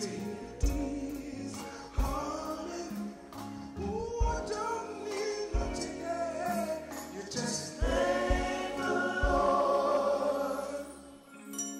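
Live band music with singing over a steady drum beat. About 11 seconds in the band drops out, leaving a few held, ringing notes.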